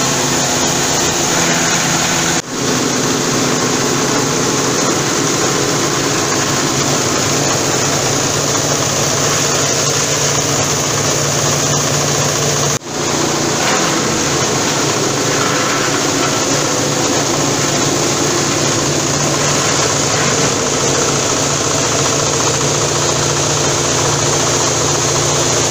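Belt-driven wood crusher running at full speed while shredding wood, a loud, steady rushing and grinding noise over a constant machine hum, as fine chips and sawdust spray out of the discharge. The sound dips briefly twice, about two and a half seconds in and near the middle.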